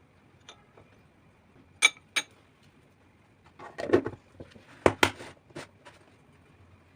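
Scattered sharp clicks and knocks of things being handled in a kitchen: two clicks, a rougher clatter a couple of seconds later, then a quick run of three or four clicks.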